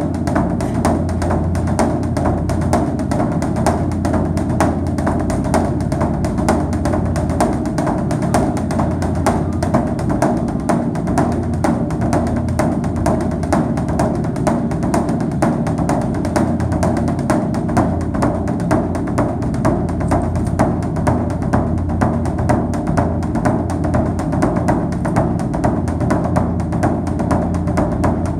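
Background music with a steady, quick percussive beat of wood-block-like strikes over sustained low tones.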